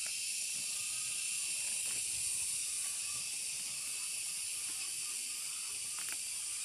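Steady high-pitched hiss of outdoor background noise, with faint rustling and a light click about six seconds in as leafy garden greens are cut by hand with a small knife.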